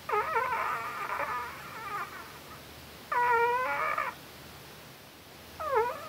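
White Pomeranian whimpering in its sleep: three high whines, a long wavering one at the start, a second of about a second that dips and rises, and a short one near the end.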